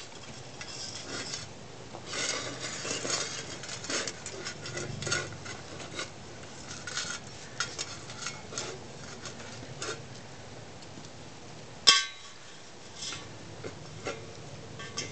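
Stainless steel dog bowl clinking and scraping on concrete as a dog eats from it and shoves it around, with one loud clank about twelve seconds in.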